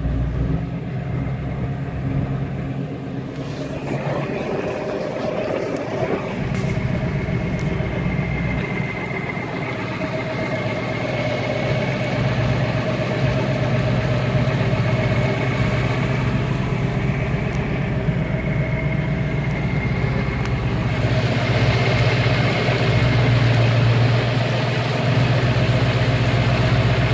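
Truck engine running steadily at low revs while driving through deep flood water, with a faint steady whine above it. About 21 seconds in, a rushing noise swells and stays louder.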